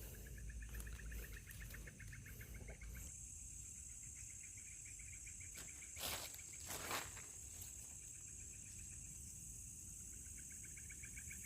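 Night insects calling: a rapid pulsed trill that stops about three seconds in and comes back near the end, over a steady high-pitched buzz that starts about three seconds in. Two short knocks come about six and seven seconds in.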